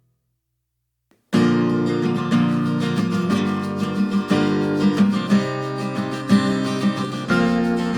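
Background music: after a second or so of silence, a new track starts suddenly with strummed acoustic guitar.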